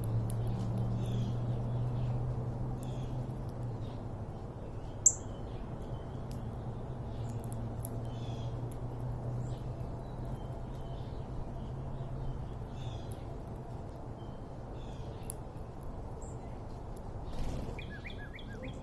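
Small wild birds chirping in short, repeated calls over a low steady hum. A single sharp click about five seconds in, and a quick run of notes near the end.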